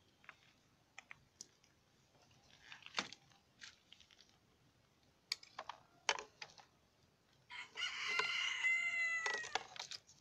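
A rooster crowing once for about two seconds near the end, the loudest sound. Before it come scattered sharp clicks and knocks as a homemade PVC bolt-action marble gun is handled.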